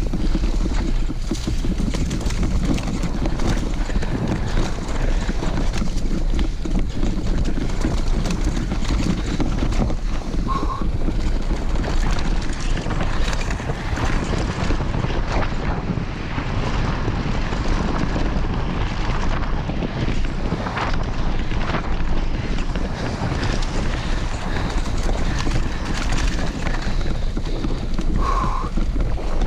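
Wind rushing over the microphone of a camera on a mountain bike during a fast downhill run, with constant rough rattling from the bike on the trail. Two short squeaks come about ten seconds in and again near the end.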